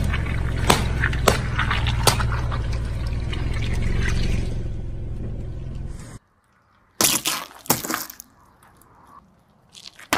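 Car tyre rolling over balloons full of water beads: a steady low rumble with several sharp pops as the balloons burst. After an abrupt cut, two loud cracking bursts as a tyre crushes raw eggs and sealed snack packets, then another sharp crack near the end.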